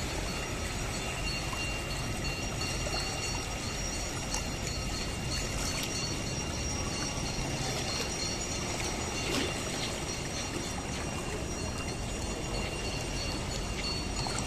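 The Ganges flowing fast past the riverbank, a steady even rush of water.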